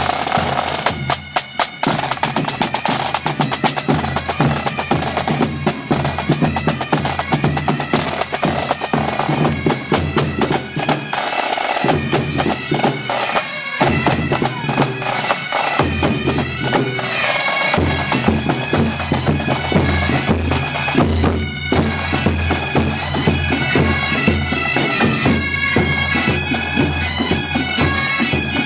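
Marching pipe band playing: bagpipes sound a steady drone under the melody, with bass and snare drums beating time.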